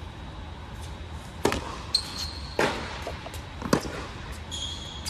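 Tennis rally on an indoor hard court: four sharp impacts of racket on ball and ball bouncing, the loudest, about three-quarters of the way through, a close forehand. Short high squeaks of tennis shoes on the court come in between, and the hits echo in the large indoor hall.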